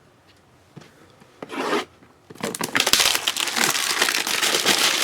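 A trading-card box's packaging being torn open and handled: one short scrape about a second and a half in, then loud, continuous rasping and crinkling of cardboard and wrapper rubbing together.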